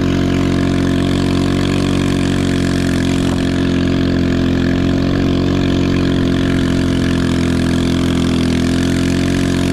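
Chinese 110cc ATV's small single-cylinder four-stroke engine running hard at steady, nearly unchanging revs.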